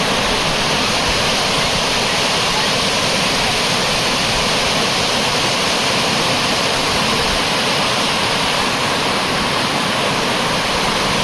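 Waterfall rushing, a loud, steady wash of falling water.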